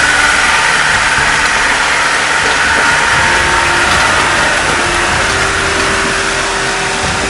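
Engines of Land Rover off-roaders running steadily in a fast mountain river, under the constant loud rush of the water around their wheels.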